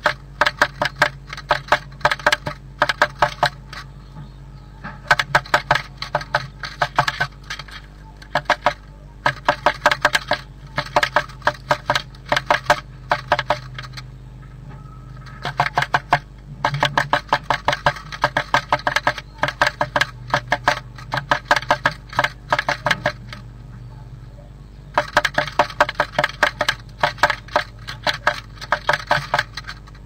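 Blue tit pecking at the inside wall of its nest box: rapid hard taps in bursts of a few seconds with short pauses between them. A steady low hum runs underneath.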